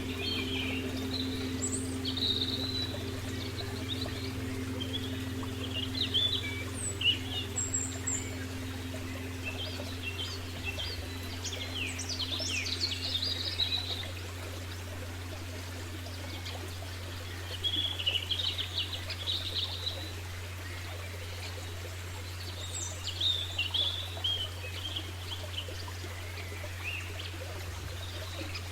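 Birds chirping and twittering in short bouts every few seconds over a steady low hum and soft rushing background. A few held low tones fade away about ten to fourteen seconds in.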